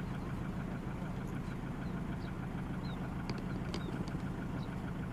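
Van engine idling steadily. Two sharp clicks about three and a half seconds in, as a suitcase is stood up and its handle gripped.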